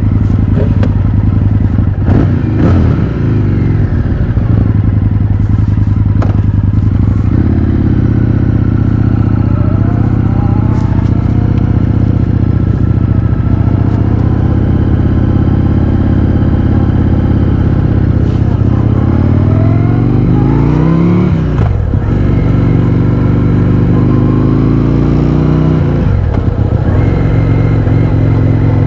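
Indian FTR 1200's 1203 cc V-twin running loud through an Akrapovič exhaust with the baffles removed. The pitch rises and then drops back several times as the engine is revved up and shifted through the gears.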